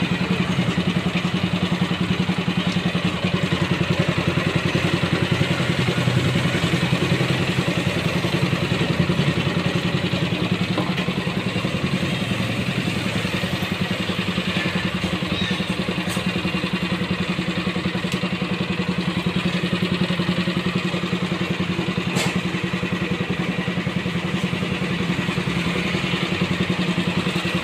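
Motor-driven stainless-steel coconut milk press running steadily, a constant low hum as it presses grated coconut and discharges the pulp.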